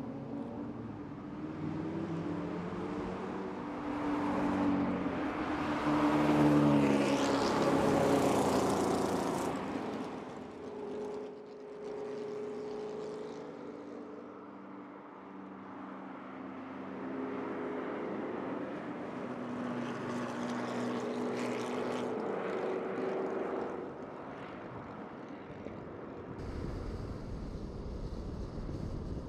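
Ford GT and Ford GT40 race cars passing at speed one after another, each engine note rising and falling as it goes by, loudest about six to nine seconds in. Near the end the sound switches to a steady in-car engine rumble with wind noise.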